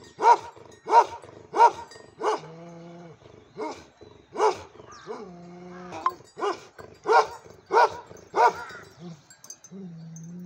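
A dog barking repeatedly: about ten short, loud barks in two runs, with a pause around the middle. A low, steady, drawn-out note sounds in the pauses between runs.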